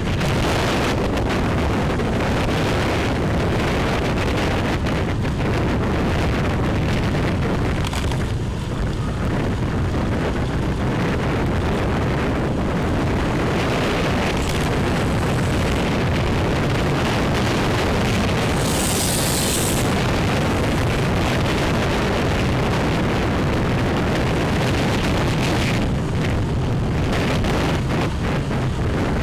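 Wind buffeting the microphone of a moving motorbike, a loud, steady rush with the ride's road noise underneath. A short hiss about two-thirds of the way through.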